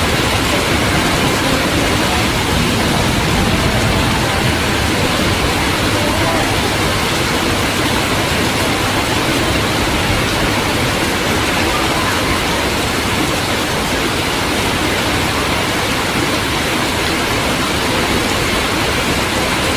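Heavy downpour: a dense, steady hiss of rain falling hard.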